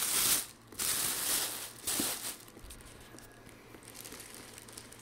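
Clear plastic bag crinkling as it is pulled off an inverter: three loud rustling stretches in the first two seconds or so, then only faint rustling.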